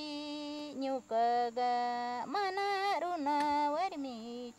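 A Quichua woman singing unaccompanied, holding long notes and sliding between pitches, with short breaths between phrases: a chajra garden song to the spirit of the yuca.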